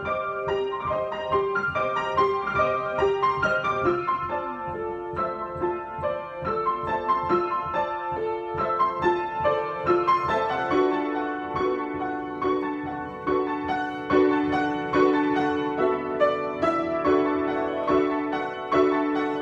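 Solo piano improvisation: notes struck in a steady, repeating pulse over sustained lower notes.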